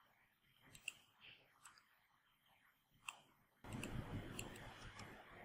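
Faint, sharp computer mouse clicks, three or four spread over the first three seconds, then a soft low rustling noise for the last couple of seconds.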